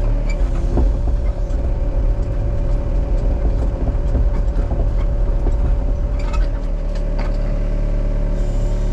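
Excavator diesel engine running under load with a steady whine, with a few short knocks and clanks along the way.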